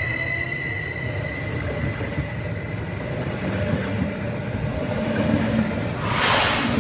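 Electric multiple unit rolling slowly past along the platform, with the steady rumble of its wheels on the rails and a high steady whine that fades over the first few seconds. A short loud hiss comes about six seconds in.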